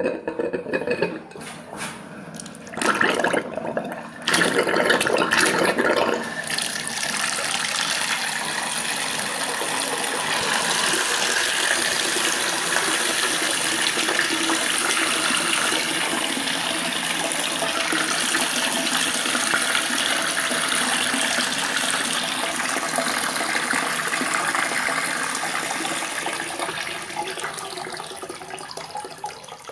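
Water pumped up to the upper floor by an electric pump, gushing out in uneven spurts for the first six seconds or so, then flowing steadily. The flow dies away near the end as the pump is switched off.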